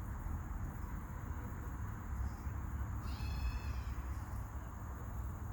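Sleeping rooster snoring: a soft, steady breathy noise with one short, high squeaky whine a little past halfway.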